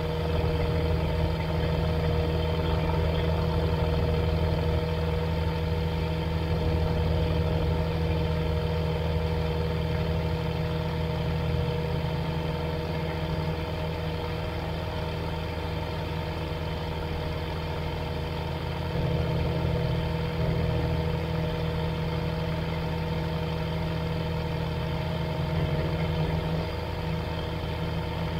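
Flight Design CTSW light-sport aircraft's Rotax 912 ULS engine idling steadily on the ground, its propeller turning, with a few small swells in level.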